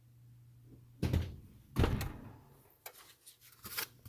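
Two dull thumps about a second apart, a little over a second in, then a few lighter clicks near the end, over a steady low hum, as things are handled in a kitchen.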